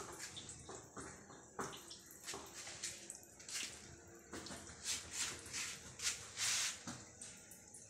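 A stick broom sweeping a tiled floor: irregular swishing strokes, one long stroke near the end the loudest.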